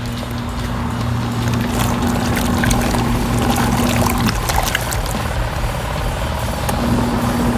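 Kuppet Mini countertop washing machine running its wash cycle: the pulsator motor hums steadily with water swishing in the tub, the hum stops about four seconds in and starts again near the end as the alternating pulsator pauses and reverses direction.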